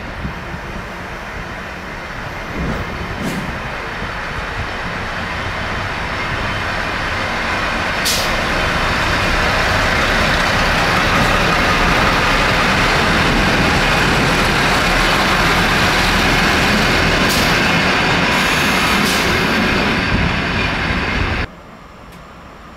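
A train running through the station: a loud, even rumble that builds over about ten seconds, holds steady with a few sharp clicks, and cuts off suddenly near the end.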